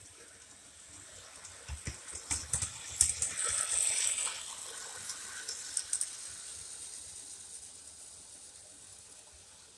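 O-gauge model train, a Class 35 Hymek diesel locomotive pulling a car and a caboose, rolling past on tubular 027 track: wheels clicking over the rail joints with a rumble that builds to its loudest about three seconds in, then fades steadily as the train runs away.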